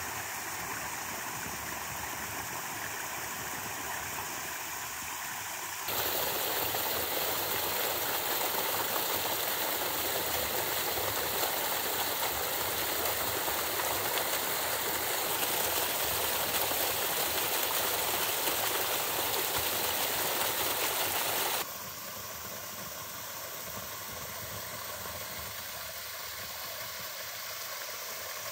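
Creek water running over sandstone ledges at low flow. From about six seconds in, a much louder rush of water pouring through a narrow rock chute starts abruptly, then cuts off just as suddenly about twenty-two seconds in, leaving the quieter trickle of a small waterfall.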